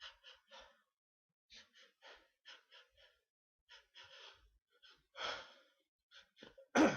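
A person's sneeze building up: a string of short, quick gasping breaths, a longer breath in about five seconds in, then a loud, sudden sneeze near the end.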